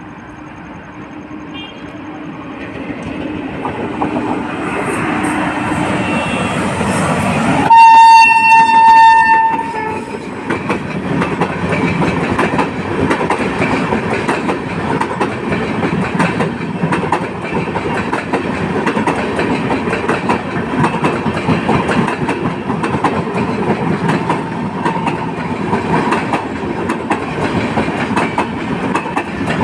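Train led by a WAP-7 electric locomotive grows louder as it approaches, then the locomotive sounds one loud horn blast lasting about two seconds, about eight seconds in. After that comes the steady clatter of the train's wheels over the rails as it runs past.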